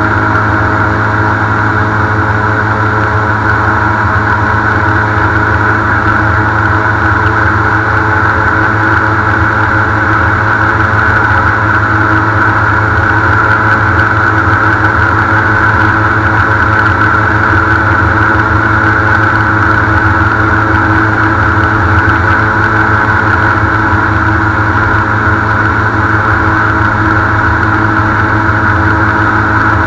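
Airboat engine and propeller running steadily at cruising speed, loud and unchanging.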